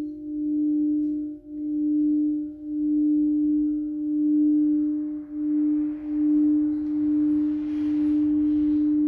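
Crystal singing bowl ringing with one steady low note that swells and fades in a slow pulse about once a second. A soft hiss builds up under it in the second half.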